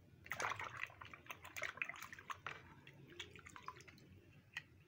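Water splashing and dripping in a small plastic tub as a muddy toy car is dunked and washed in it by hand. It is busiest in the first two and a half seconds, then thins to scattered drips and splashes.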